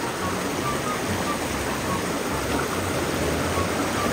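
Shallow rocky forest stream running and trickling over stones, a steady rush of water.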